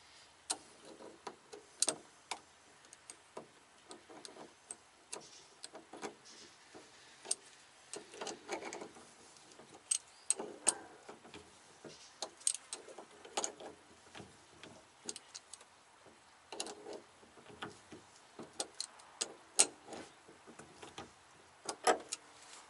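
Irregular metallic clicks and ticks of wrenches working the top nut of a shock absorber as it is tightened down, the shaft held with a second wrench. Some clicks come singly, some in short clusters.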